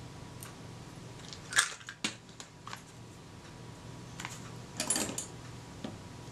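Sharp little clicks and light clatter of small tools and parts being picked up and handled on a workbench. The loudest click comes about a second and a half in, a few ticks follow, and a brief cluster of clicks comes near five seconds, over a low steady hum.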